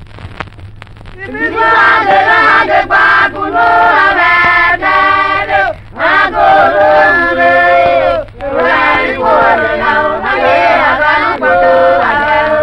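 Traditional Okpe ogine music: a group of voices singing a chant together, coming in about a second in and breaking off briefly twice.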